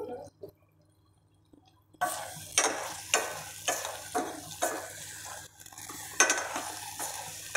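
A metal ladle stirring chicken adobo in a stainless steel pot, knocking and scraping against the pot about twice a second over a steady sizzle of the cooking sauce. The sound starts suddenly about two seconds in, after near silence.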